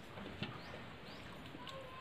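Fingers mixing rice and curry on a steel thali: faint wet mixing with a few light clicks of fingers against the metal plate, the sharpest about half a second in.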